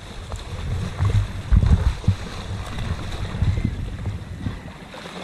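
Wind buffeting the microphone and sea water lapping against a small inflatable boat, with a few dull low thuds about one and a half to two seconds in.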